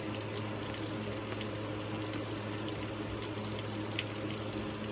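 A steady low hum over a continuous hiss, with a faint short tick about four seconds in.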